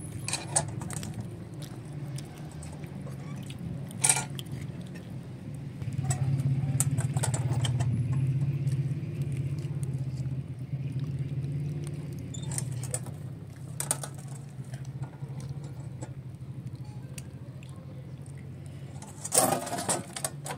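Wood fire burning under a metal griddle, with a steady low background and scattered sharp crackles and pops. Near the end comes a quick cluster of metal clinks and knocks as the griddle is lifted and handled.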